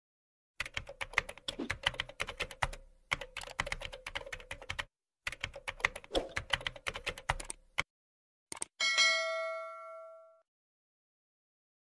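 Keyboard typing sound effect: rapid key clicks in two runs of a few seconds each. Then a click and a bright bell ding that rings out for about a second and a half, as from a subscribe-and-notification-bell animation.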